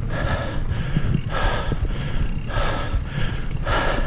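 Mountain bike rolling over a dirt trail with steady wind and ground rumble, and the rider breathing hard in a regular rhythm, about one breath a second, from race effort.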